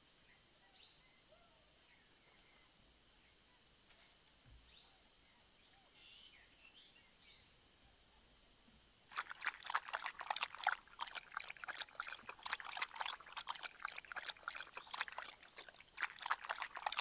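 Steady, high-pitched insect chorus; about halfway through, quick irregular wet clicks of a dhole lapping water from a pool join it.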